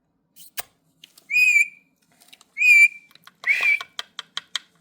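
Green pet parrot giving two short whistled calls about a second apart, then a third call, followed by a quick run of sharp clicks.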